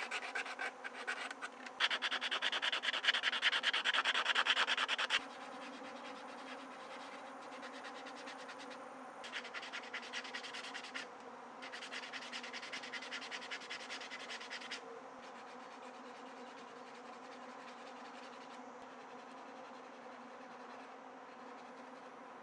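Rapid rubbing strokes on a piece of hand-worked wood, in several bursts, the loudest and longest a couple of seconds in, over a faint steady buzz.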